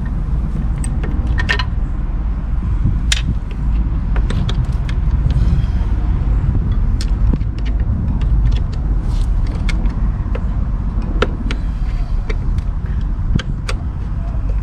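Scattered metallic clicks and clinks of a wrench and bolt hardware being worked, over a steady low rumble.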